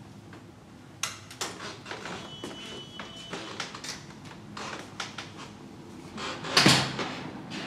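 A wooden apartment door and its latch and lock being worked: a run of clicks, knocks and rattles, with a brief high squeak, as the door is shut. Near the end comes one louder, sudden sound.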